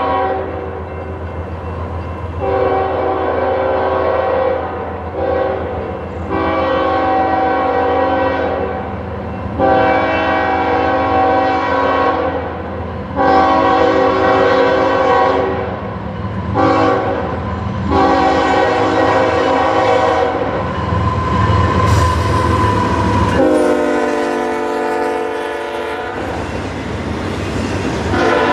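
Diesel locomotive air horn sounding the grade-crossing signal, long, long, short, long, and then repeating it, over the low rumble of the train. The final blast is held and drops in pitch as the locomotive passes.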